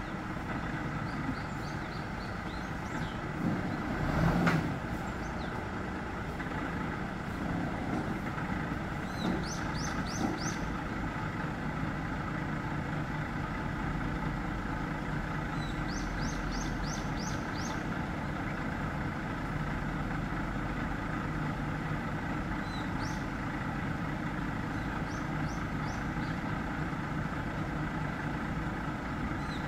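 Truck engine idling steadily, with a single knock about four and a half seconds in. Short runs of four or five high chirps come several times over the top.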